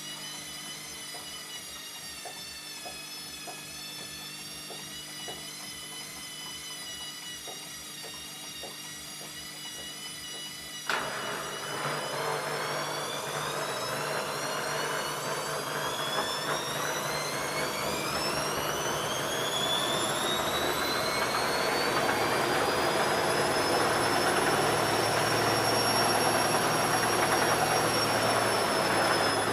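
ELIN A 100 E washing machine running: a steady motor whine with faint regular ticking. About eleven seconds in, it suddenly gets louder with a rushing rumble, and its whine climbs steadily in pitch as the drum speeds up into a spin.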